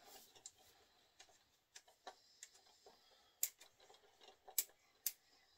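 Scattered light clicks and taps of a handle being fitted back onto a transducer pole (Summit pole), irregular, with the sharpest clicks about three and a half and four and a half seconds in.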